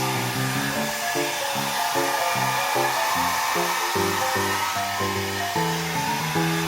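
A hair dryer blowing steadily, with background music of short, separate melody notes playing over it.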